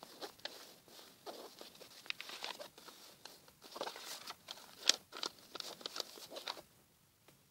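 A sheet of paper being folded and creased by hand: irregular rustles, crinkles and short scrapes as fingers press and run along the folds. The sharpest crackle comes about five seconds in, and the rustling stops shortly before the end.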